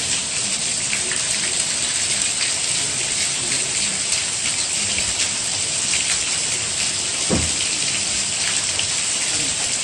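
Steady hiss of heavy rain, with faint murmuring voices underneath and a single dull thump about seven seconds in.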